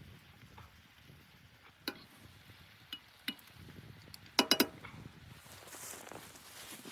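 Metal dishes clinking as they are handled: a few light clinks, then a quick run of three louder, ringing clinks about four and a half seconds in.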